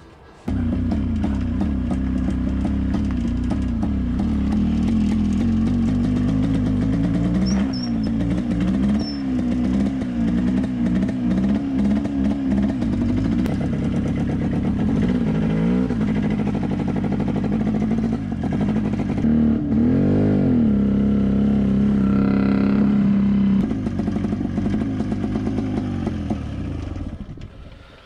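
Off-road motorcycle engine catching on a push-start about half a second in, then running under way, revving up and down several times before dying away near the end. It is missing, which the rider takes for running on only one cylinder because of a pulled-off ignition lead.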